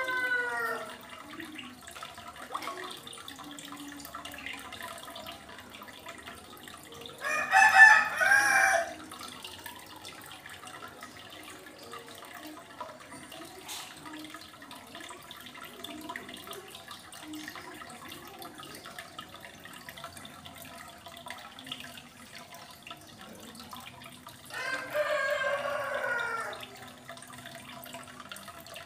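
Aquarium filter trickling water steadily, with a rooster crowing three times: once just as it begins, once loudly about seven seconds in, and once about twenty-five seconds in.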